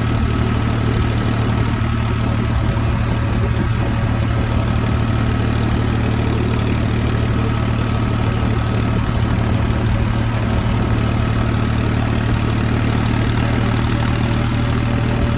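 Tractor diesel engine running steadily as the tractor drives along a road, heard from the driver's seat: an even drone that does not rise or fall.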